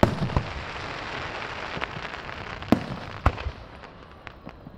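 Aerial fireworks going off: several sharp bangs, the strongest right at the start and about three seconds in, with a steady crackling between them that dies down near the end.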